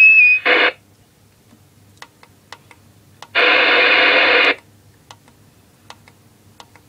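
Moonraker CB radio being stepped down through its channels, with a string of small clicks as the channel button is pressed. About three and a half seconds in, a loud burst of hissy static comes from the speaker for about a second before the set goes quiet again. A short electronic beep and a brief crackle mark the very start, over a faint steady hum.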